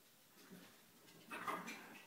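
Small Yorkshire terrier giving a short burst of yips about a second and a half in, otherwise nearly quiet.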